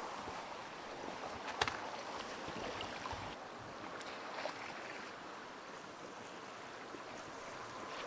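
Spring ice drift on a river: broken ice floes carried along on flowing water, a steady wash with a few scattered clinks and knocks of ice, the sharpest about one and a half seconds in.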